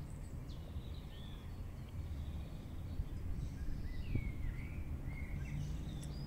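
Outdoor ambience: a steady low rumble with several short, faint bird chirps scattered through it.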